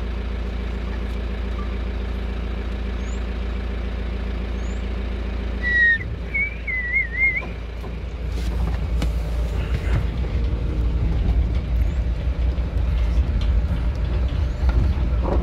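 Vehicle engine idling steadily. About six seconds in comes a short wavering high squeal, and from about eight seconds the engine runs louder and rougher as the vehicle moves off.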